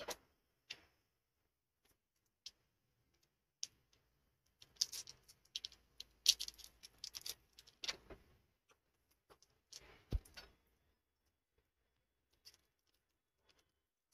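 Crinkling and rustling of a plastic wrapper as an M-seal epoxy putty stick is unwrapped and handled, with scattered small clicks and taps on the workbench and a dull knock about ten seconds in.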